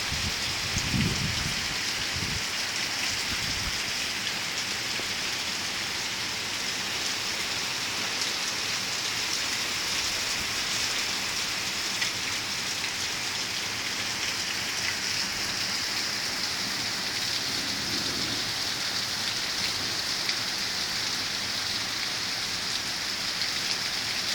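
Hard rain pouring down steadily, a dense even hiss of drops, with a brief low rumble about a second in.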